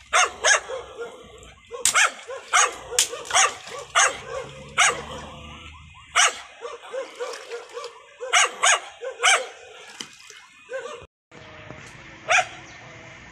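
A dog barking in a run of short, sharp barks, a dozen or so over the first ten seconds, then one last bark near the end.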